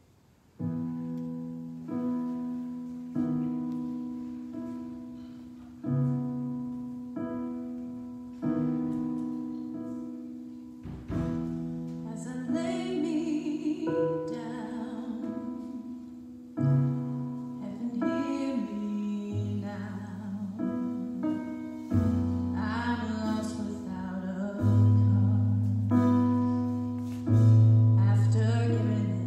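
Korg electric keyboard playing slow piano chords, each struck and left to fade, about one every second and a bit. About eleven seconds in, singing joins over the chords, and deeper bass notes come in later.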